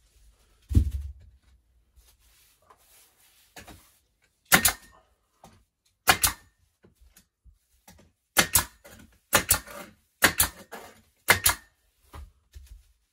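Pneumatic nail gun firing about eight times into wood wall boards, each a sharp crack with a short hiss of air, some in quick pairs and coming faster toward the end. A dull thump about a second in, as the board is pressed against the wall.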